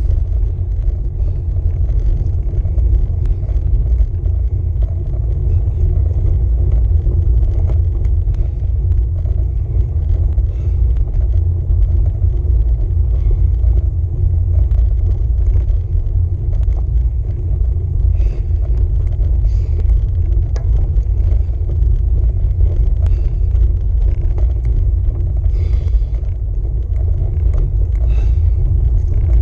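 Steady low rumble of wind buffeting and road vibration on the microphone of a camera mounted on a road bike's handlebars as the bike rolls along tarmac.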